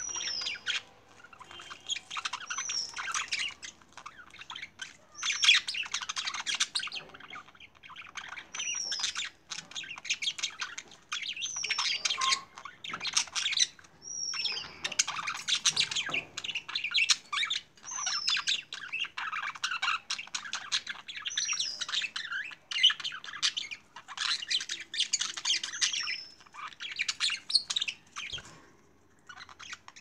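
Budgerigars chattering in bursts of rapid warbling, with a short, high, falling chirp repeated every few seconds.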